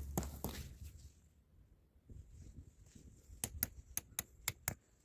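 Metal tent peg being tapped into the forest floor with a stone: a quick run of sharp taps, about five a second, in the second half, after some rustling.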